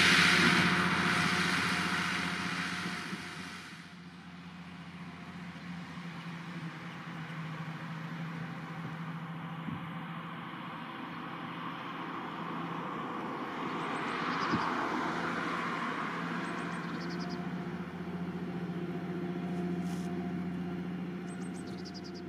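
Diesel engine of a Vredo VT3306 slurry applicator running steadily under load as it pulls a 20500Z tank trailer and injector across the field. A broad rushing noise is loud at first and dies away over the first few seconds, leaving a steady engine hum that swells briefly around the middle.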